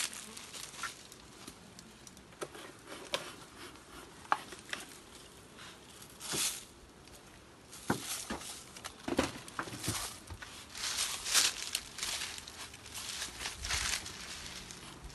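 Intermittent dry rustling and crunching with scattered clicks and knocks, busier in the second half: a hand scooping dry granulated sugar in a plastic bucket to feed the bees.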